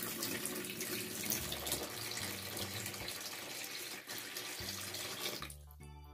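Water poured in a steady stream from a pot into a plastic baby bathtub, splashing into the shallow water already in the tub. The pour stops about five and a half seconds in.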